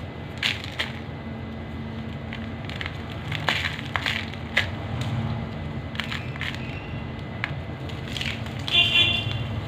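A crunchy, dusty homemade texture being crushed, giving a series of irregular crisp crunches and crackles, a few louder than the rest.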